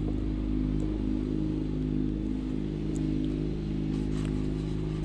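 An engine running steadily at an even pitch, with a light clatter now and then.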